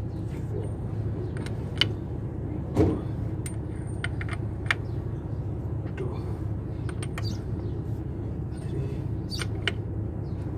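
Scattered metal clicks and taps of a wrench turning the bolts of a seal installer at the rear of a Caterpillar C15 engine, pressing the rear crankshaft seal into its housing, over a steady low hum.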